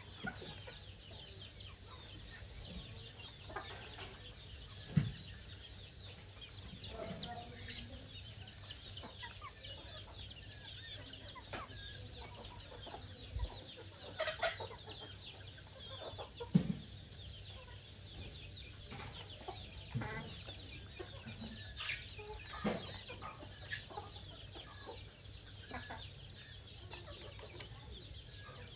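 A small flock of chickens: chicks peeping continually in short, high chirps while hens cluck now and then, with a few louder, sharper calls standing out, the loudest about five seconds in and again past the halfway mark.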